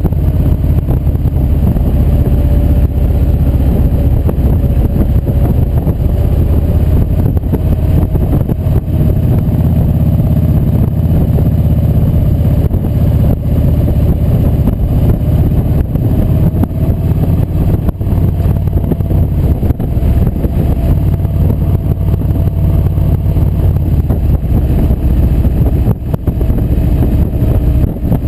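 Kawasaki Vulcan Voyager VN1700 V-twin engine running steadily at cruising speed, mixed with heavy wind rush on the bike-mounted microphone.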